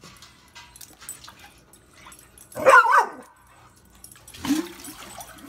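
A dog gives a short, wavering whine-bark about halfway through, with a lower, shorter vocal sound about a second and a half later.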